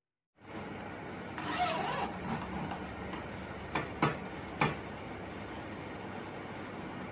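Castor wheels being fixed to a particle-board bed base with a handheld electric drill: a brief rasping whirr about a second and a half in, then three sharp clicks near the middle, over a steady low hum.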